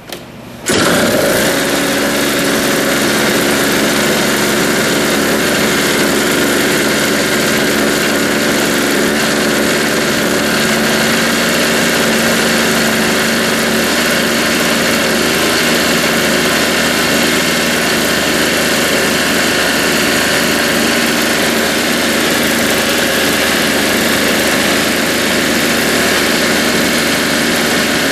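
Tecumseh two-stroke engine of a Toro CCR Powerlite snowblower running steadily at high governed speed, coming in abruptly under a second in. The governor is being set to raise its speed to about 4,500 RPM.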